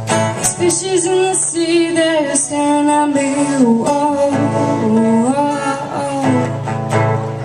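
Music: a song with plucked guitar and a singing voice carrying the melody.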